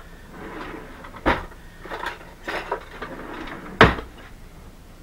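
Kitchen counter handling sounds: rustling and light clatter as jalapeños and utensils are handled at a wooden cutting board, with two sharp knocks, one about a second in and a louder one just before four seconds.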